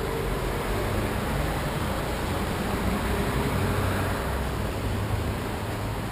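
Steady low rumble and hiss of city background noise, with traffic sound.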